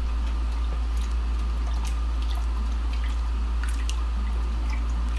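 Green silicone spatula stirring salt into lye water in a glass measuring jug: light liquid swishing with faint, scattered clicks against the glass, over a steady low hum.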